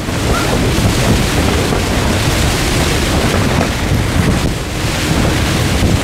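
Typhoon wind gusting and rain lashing against the fabric of a dome tent, heard from inside the tent as a loud, steady rushing roar.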